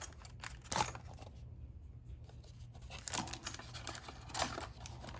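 Packaging being handled and opened: three short rustles and taps, about a second in, at three seconds and near four and a half seconds, with quiet handling between.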